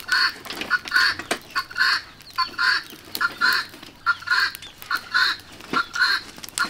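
Domestic fowl calling over and over in short harsh calls, close to two a second, with a couple of sharp cracks from the wood fire.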